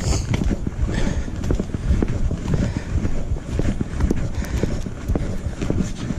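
Quick footsteps on a concrete path, picked up by a body-worn camera as a string of dull thumps.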